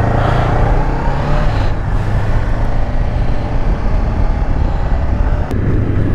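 Honda CB500X motorcycle's parallel-twin engine running while riding, with steady wind rush on the microphone.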